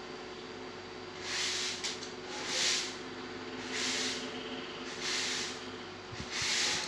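A person's breathing close to the microphone: five soft, airy puffs, about one every 1.2 seconds, over a steady low electrical hum.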